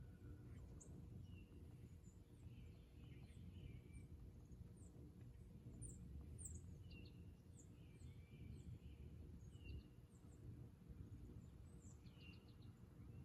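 Faint morning birdsong: many short, high chirps scattered throughout, with a few lower warbling calls, over a steady low rumble.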